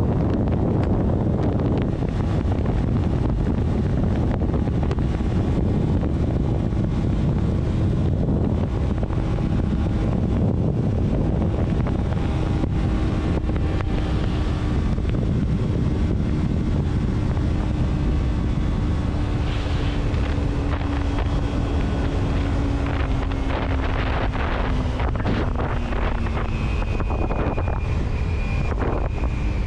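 Steady wind and road noise from a moving vehicle buffeting the microphone, with a faint engine note that slowly drops in pitch through the middle and a few sharp ticks near the end.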